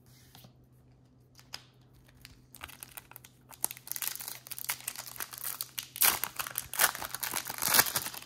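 Foil trading-card pack wrapper crinkling and tearing open. It starts about two and a half seconds in, after a quiet stretch with a few light clicks, and gets louder near the end.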